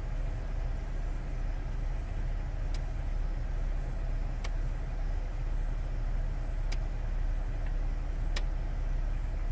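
Car engine idling steadily, heard from inside the cabin, with four sharp clicks spaced a second or two apart.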